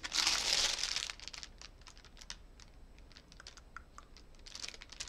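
Clear plastic bag of small packets of diamond painting drills crinkling as it is handled and turned over: a loud rustle at first, then a run of small clicks and crackles, and more rustling near the end.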